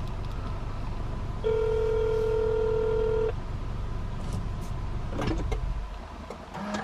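Telephone ringback tone from a smartphone on speaker: a single steady ring starts about a second and a half in and lasts about two seconds, so the call is ringing and has not yet been answered. A low steady rumble runs underneath.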